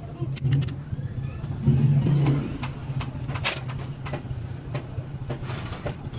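Steady low engine-like hum with a series of sharp clicks and knocks scattered through it, as of metal parts and tools being handled during a truck differential repair.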